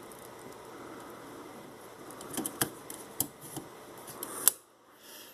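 A few light mechanical clicks and knocks from handling the parts of an Olympia Deluxe typewriter, the sharpest about four and a half seconds in.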